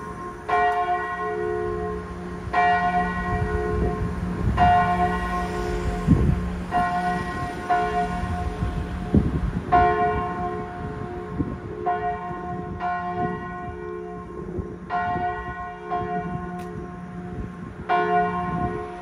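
Church bells tolling the death knell (glas): a large bell swinging in full peal, with a stroke about every two seconds and a low hum ringing on beneath, joined by tolled strokes on a smaller bell.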